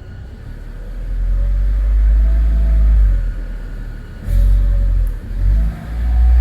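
Car engine revved several times, rising and falling, with a faint whistle that climbs and drops with the revs. The whistle comes from the junction of the clutch bell housing and the gearbox. It shows up mainly as the throttle is released, and pressing the clutch does not change it.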